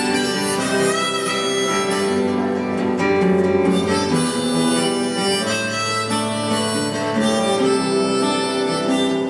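A band playing an instrumental break between verses of a song: a harmonica melody over acoustic guitar.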